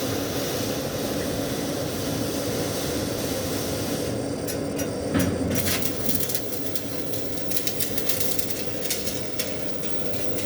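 MMA (stick) welding arc hissing and crackling over a steady low hum. About four seconds in it breaks off briefly with a thump, then goes on with an irregular sputtering crackle.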